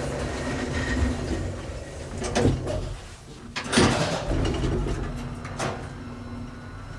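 A 1954 Otis elevator running: a steady mechanical hum with three short swishes and clunks, which fit the sliding door closing and the car setting off.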